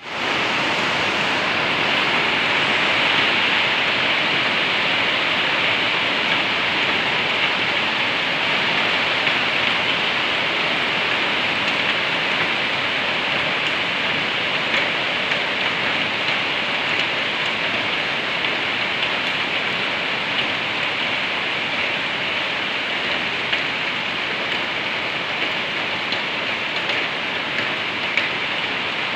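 Steady rain falling on a corrugated metal roof and the surrounding plants, with occasional louder drop hits.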